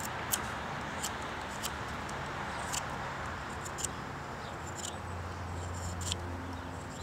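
Scandi-ground bushcraft knife cutting a notch into a sassafras stick: about six sharp, irregularly spaced cracks as the blade bites into the wood, over a steady outdoor hiss. A low hum comes in about five seconds in.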